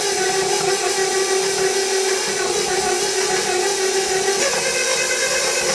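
KitchenAid stand mixer's motor running steadily, its beater working cubed cold butter in the metal bowl to soften it. The whine steps up in pitch about four seconds in.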